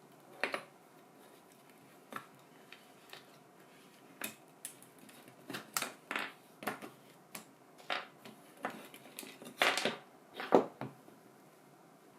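Irregular clicks and light knocks of small hard parts and tools being handled, a few dozen in all, the loudest coming close together near the end.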